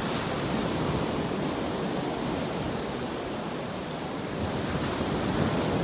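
Small waves washing in at the water's edge of a sandy beach: a steady rush of surf noise, mixed with wind on the microphone.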